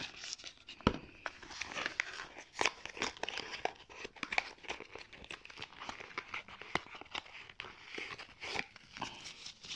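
Packaging being handled: crinkling and rustling of bubble wrap, cardboard and plastic makeup packaging, with many small clicks and one sharp tap about a second in.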